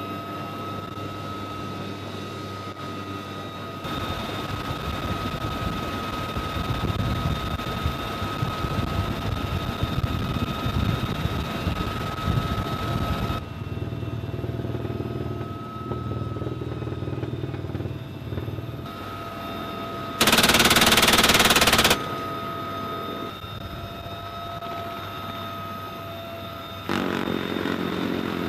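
UH-1Y Venom helicopter heard from inside the cabin: steady turbine and gearbox whine over rotor rumble. About two-thirds of the way through, a door-mounted machine gun fires one loud, unbroken burst of about a second and a half. A shorter burst follows near the end.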